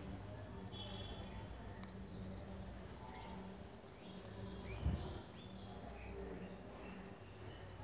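Faint background ambience with birds or insects chirping, over a low pulsing hum. A single thump comes about five seconds in.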